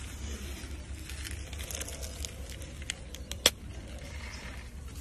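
Giant tortoise biting and chewing a soft orange vegetable: faint crackly crunching, then a few sharp clicks of its beak near the middle, the loudest about three and a half seconds in, over a steady low rumble.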